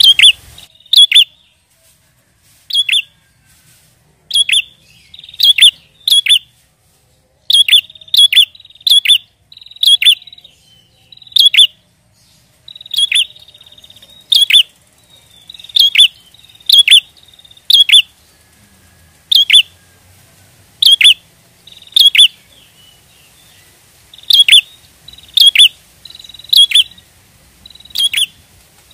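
A prenjak (prinia) calling: loud, sharp chirps that sweep steeply down in pitch, given singly or in quick pairs and threes about once or twice a second with short pauses, and a few brief buzzy trills between them.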